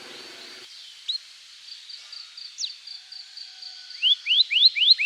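Canary singing: a faint, high, rapid trill with a few single chirps, then from about four seconds in a run of loud, separate, sweeping "cuit" notes, about three a second.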